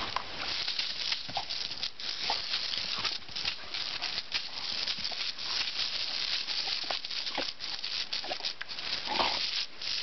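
A garden hose jet hisses and patters onto gravel paving and onto a Rhodesian Ridgeback. Many short splashy snaps sound through it as the dog bites at the water stream.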